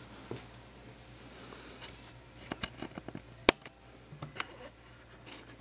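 Handling noise from a hand holding a tablet: a few small taps and clicks around the middle, the loudest a single sharp click about three and a half seconds in, over a faint low room hum.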